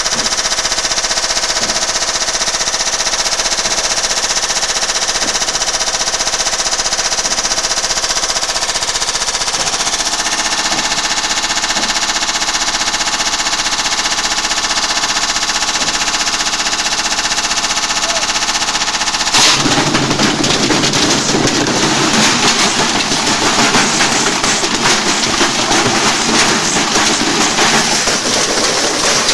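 Washing machine on a violent high-speed spin, its motor whining steadily under rapid, continuous banging. About 19 seconds in the sound suddenly turns louder and harsher, a dense grinding rattle, as the machine self-destructs.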